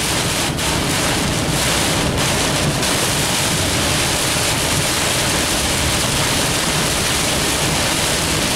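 Heavy rain hitting a car's windshield and roof, heard from inside the moving car: a loud, steady rush of water noise.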